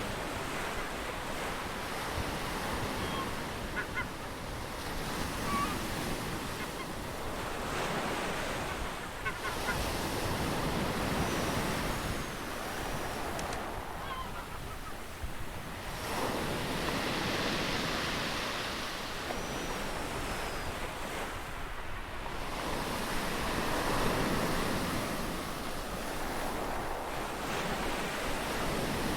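Ocean waves breaking and washing ashore in repeated surges that swell and ebb every few seconds. A few short, faint bird calls are heard over the surf.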